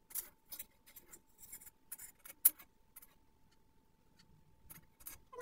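A spoon scraping and clicking in a jar and against a wok, in short irregular scrapes with one sharp click about two and a half seconds in. A faint steady tone runs underneath.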